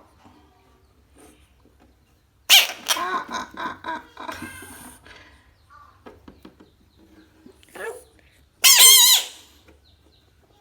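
A frog calling: a run of wavering calls about two and a half seconds in, then one loud, short, high-pitched wavering call near the end.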